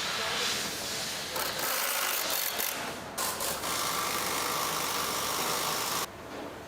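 A machine or power tool running in a workshop: a dense mechanical noise with a short break about three seconds in, then cutting off abruptly near the end.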